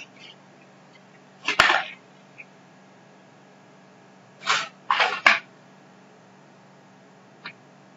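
Cardboard bike-light packaging being pulled open and handled: short scraping and rustling bursts, one about a second and a half in and a cluster of three around five seconds in.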